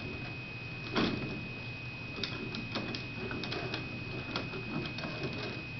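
Plastic knocks and clicks from a toddler's toy push cart as he grips it and pulls up to stand: one louder thump about a second in, then a scatter of light clicks and rattles.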